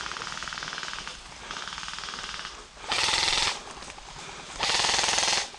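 Airsoft guns firing on full auto: rapid-fire rattling bursts, two fainter ones first, then two loud bursts from close by.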